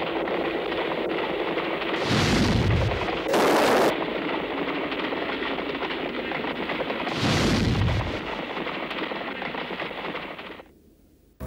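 Battle explosion sound effects: two loud blasts, about two and seven seconds in, with a short loud hiss between them, over a steady noise that fades away near the end.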